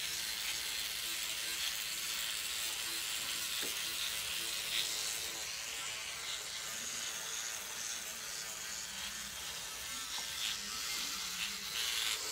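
Motorized microneedling pen (SkinPen) buzzing steadily as it is worked over the skin.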